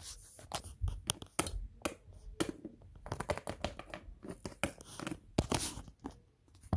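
Small plastic Littlest Pet Shop figures handled and moved about on a wooden surface, giving irregular taps, clicks and scraping.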